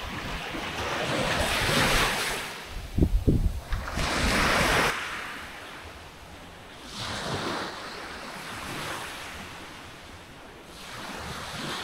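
Black Sea waves washing onto a beach in surges that swell and fade every few seconds, with wind buffeting the microphone in a low rumble about three seconds in.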